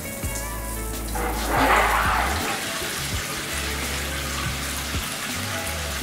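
Side body-spray jets of a shower panel spraying water, coming on about a second in with a brief surge, then a steady hiss of spray.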